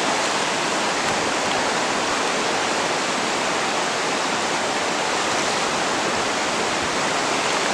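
A fast mountain river rushing past, a loud, steady wash of water noise.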